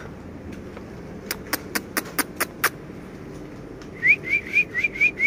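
Six sharp clicks in quick succession, then, from about four seconds in, a person whistling a rapid run of short rising chirps, about four a second.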